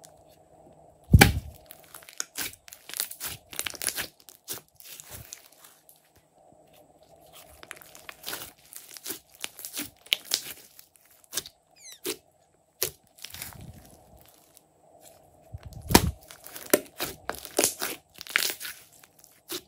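Hands squishing, stretching and pressing glossy slime, making irregular wet squelches and crackling pops of trapped air. Two louder deep thuds come about a second in and again near the end, as the slime is pressed down on the table.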